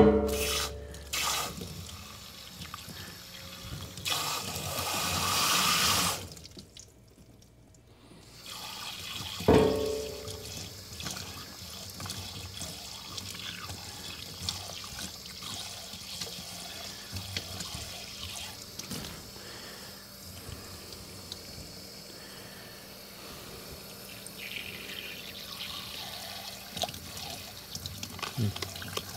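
Sink tap water running into and over a battery-corroded aluminium Mag-Lite flashlight to flush out leaked battery acid. There is a loud rush of water for about two seconds, a short lull, then a steady quieter flow. Two hard knocks come at the start and about ten seconds in.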